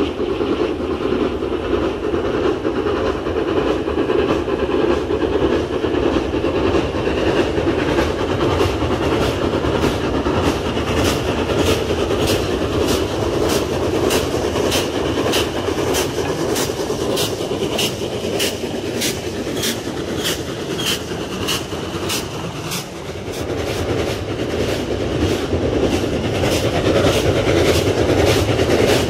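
Archive recording of a steam-hauled train running at speed: a steady rumble, with the regular clickety-clack of wheels over rail joints, a little under two clicks a second, setting in about a quarter of the way in.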